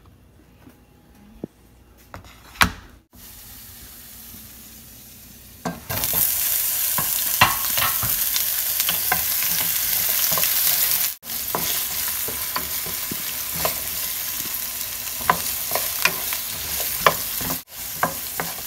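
Sliced white onion sizzling in hot oil in a nonstick frying pan, with short clacks of stirring. The first few seconds are quiet apart from a few knocks; the loud sizzle starts about six seconds in and drops out briefly twice.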